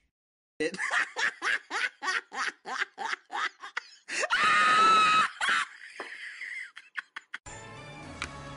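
Rhythmic laughter, a quick run of 'ha-ha' pulses about four or five a second, breaking about four seconds in into a loud, high held shriek lasting about a second.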